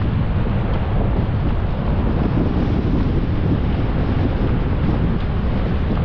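Wind buffeting the microphone with a steady low rumble, over the continuous hiss of surf breaking along an open beach.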